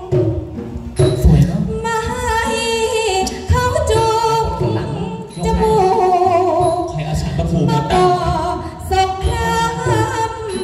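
Likay (Thai folk opera) singing over an amplified sound system: a woman's voice holding long, wavering notes, with instrumental backing beneath.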